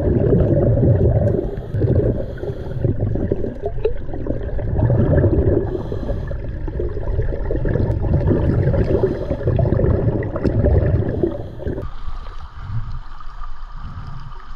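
Scuba diver's regulator bubbles heard underwater: a heavy, muffled rumble that swells and fades every couple of seconds with each breath. About twelve seconds in it drops to quieter water lapping and splashing as the camera comes up to the surface.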